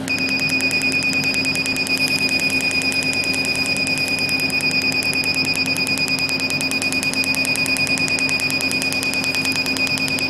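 IPL SHR hair-removal machine firing its handpiece in repeated pulses: rapid, evenly spaced clicks many times a second, with a steady high-pitched beep that sounds for as long as it fires, over the machine's low hum.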